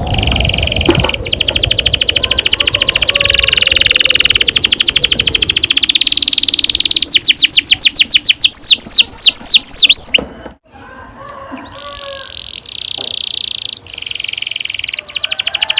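Canary singing long rolling trills, very fast repeated notes that turn into a run of sweeping notes and cut off abruptly about ten seconds in. After a short quieter gap the trilling starts again.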